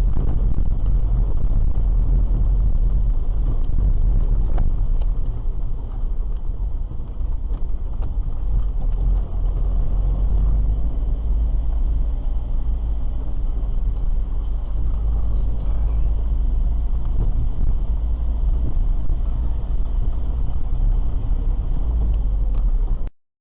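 Car driving, a steady low rumble of road and engine noise heard from inside the cabin, with a few faint clicks; it cuts off suddenly near the end.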